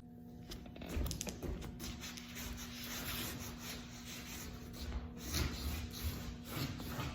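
Rustling and rubbing handling noises with small knocks, over a faint steady hum.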